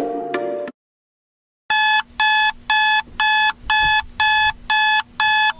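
The tail of a short musical jingle cuts off into a second of silence, then a digital alarm clock beeps in a fast, even run of about two high electronic beeps a second: a wake-up alarm going off.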